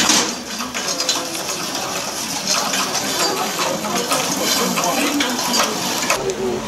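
Irregular light metallic clicking and rattling, typical of a large-scale garden model freight train rolling over its track, with people talking in the background.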